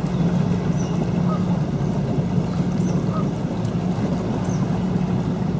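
32-foot cabin cruiser's engine running steadily underway, a constant low hum with water washing along the hull.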